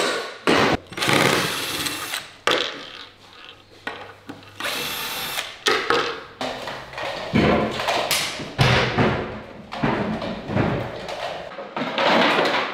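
Cordless drill driving screws into wooden furniture panels in short runs, interleaved with knocks and thuds of heavy wooden table parts being handled.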